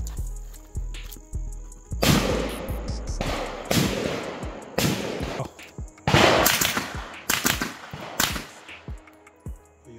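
Gunshots from a CZ Scorpion EVO 9mm carbine fired semi-automatic in quick pairs, several pairs from about two seconds in, with echo after each. Background music runs underneath.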